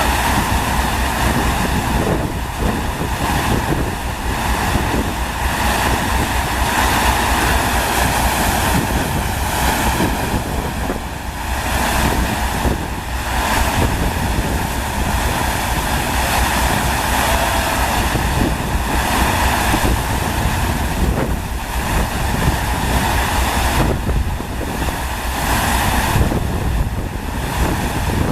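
FlowRider surf simulator's pumped sheet of water rushing steadily, with wind buffeting the microphone.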